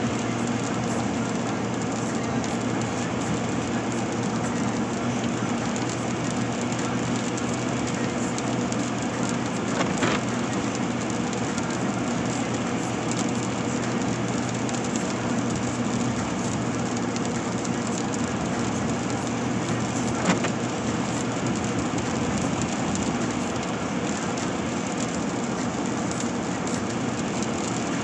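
Steady road and engine drone heard inside a car's cabin while driving on a wet road. Two brief clicks about ten seconds apart come from the windshield wipers on their intermittent setting.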